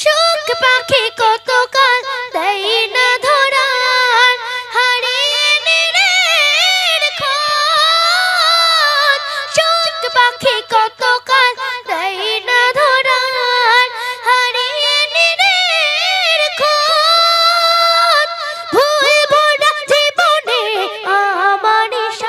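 A boy singing a Bangla Islamic gojol into a microphone, one voice without instruments, in long wavering, ornamented held notes with a few short breaks for breath.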